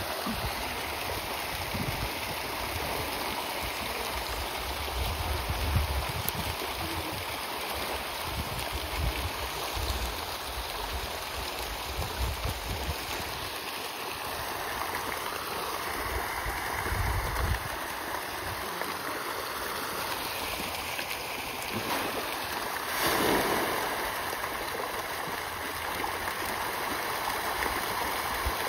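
A dense school of farmed fish thrashing and splashing at the pond surface in a feeding frenzy, a continuous churning of water with a louder burst of splashing late on.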